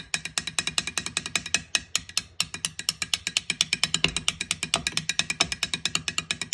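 Metal stirring knife clicking against the inside of a glass jar as it stirs oil-based enamel paint, a quick even run of about ten clicks a second.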